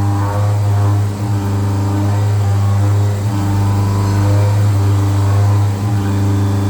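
CNC milling machine running: a steady, loud motor hum with several held tones above it, dipping briefly a few times.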